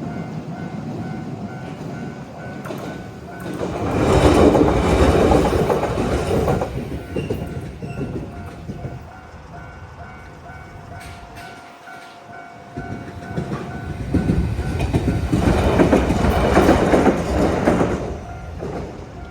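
Japanese level-crossing warning bell ringing steadily. Shizuoka Railway A3000 series electric trains pass loudly twice: once from about four seconds in, and again from about thirteen seconds in.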